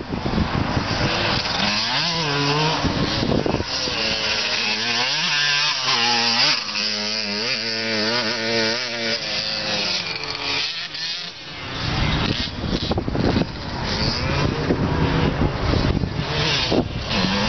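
Dirt bike engines revving up and easing off again and again, the pitch climbing and dropping with the throttle, with a rougher, fuller rumble in the last few seconds.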